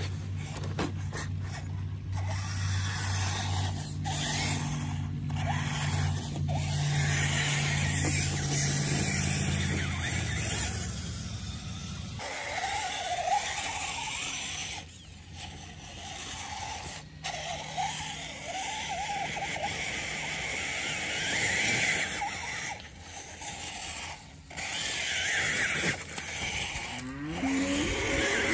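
Axial Wraith Spawn RC rock crawler climbing dirt and rock: its electric motor and gears whine, rising and falling with the throttle, over the scrabble of tyres on dirt and stones. A steady low hum runs under the first part.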